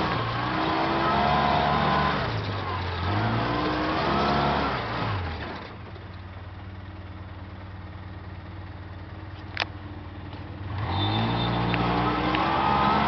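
A vehicle engine revving up and down under way. About six seconds in it drops to a steady, quieter idle for roughly five seconds, with one sharp click during it, then picks up and revs again near the end.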